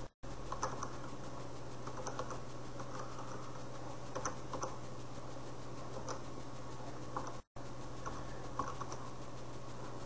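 Computer keyboard keys typed in short, irregular runs of faint clicks over a steady low electrical hum. The audio cuts out completely twice, briefly each time.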